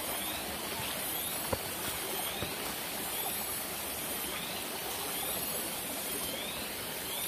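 Steady rush of a forest stream flowing, with a high pulsing buzz and short rising chirps repeating every second or so above it.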